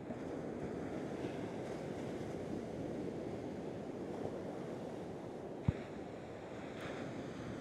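Steady low rush of sea surf washing on the beach, with one short thump a little over halfway through.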